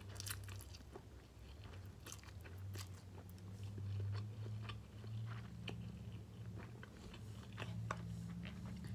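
Close-up mouth sounds of a person eating noodles: slurping strands in and chewing, with many small wet clicks, over a low steady hum.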